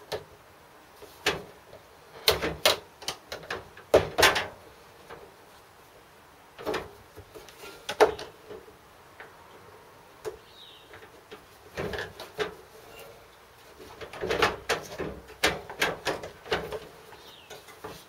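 Irregular clicks, knocks and clatters of washing-machine panels and parts being handled and pulled apart by hand.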